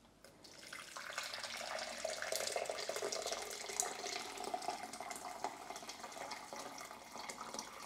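Water pouring steadily into a one-litre jug, beginning about half a second in, to make up beef stock over the stock cubes in it.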